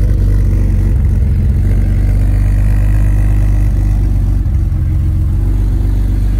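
BMW E24 M6 straight-six engine running steadily at idle, heard close to its twin exhaust tips.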